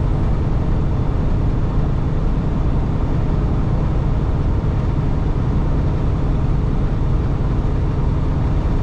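Steady low drone of a semi-truck's engine and tyres at highway speed, heard inside the cab.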